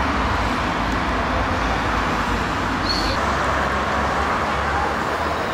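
Steady city street traffic: car engines and tyres on the road. A brief high chirp comes about halfway through.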